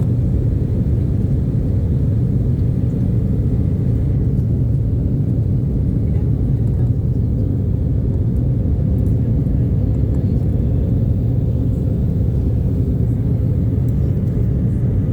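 Boeing 737's jet engines: a steady, even low rumble that holds its pitch and level throughout.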